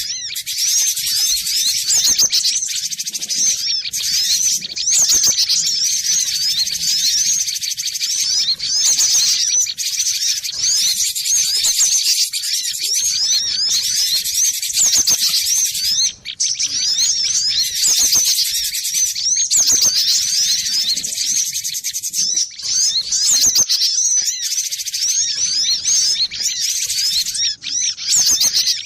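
Cinereous tit (glatik batu) singing: a fast, nearly unbroken stream of high chirping notes with only a few short breaks.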